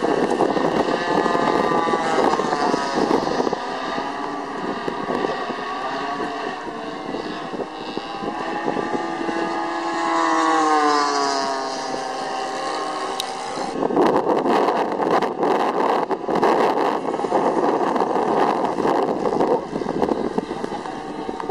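Several radio-controlled model airplane engines running in flight together, their pitch rising and falling as the planes pass; one drops clearly in pitch about ten seconds in. From about fourteen seconds in, wind buffets the microphone with rough crackles.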